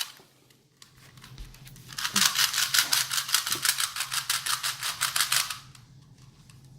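Rubik's Cube being twisted fast to scramble it: a rapid run of plastic clicks, about eight a second. The clicking starts about two seconds in and stops a little over a second before the end.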